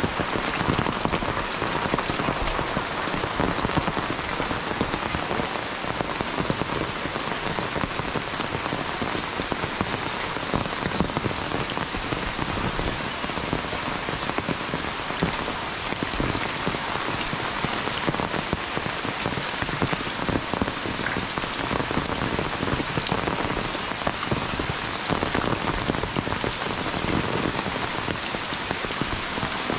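Heavy monsoon rain falling steadily: a dense, even patter with many close individual drop hits.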